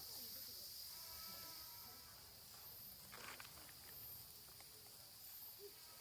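Faint, steady, high-pitched chirring of insects, with a short rustle about three seconds in.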